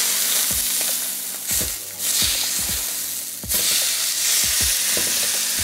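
Beef entrecôte searing on a hot ridged grill pan with no oil, sizzling in its own rendering fat, with scattered crackles. The sizzle dips briefly twice, about two and three and a half seconds in, and comes straight back.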